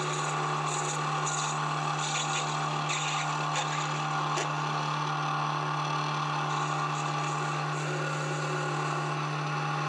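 Metal lathe running and turning a brass rod with a tool bit: a steady low hum with a hiss from the cut and a few faint ticks.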